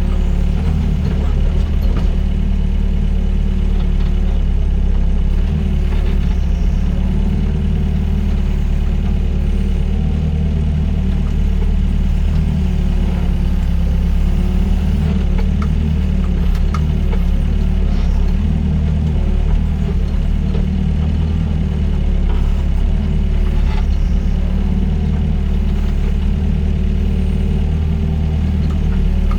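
Doosan DX55 mini excavator's diesel engine running steadily while the machine works, with a tone that keeps rising and falling.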